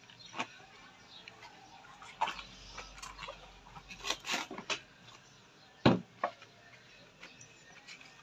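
Knife cutting and handling wet cabbage leaves on a tray: scattered clicks and taps of the blade and leaves against the tray, a cluster of them in the middle and the loudest single knock about six seconds in.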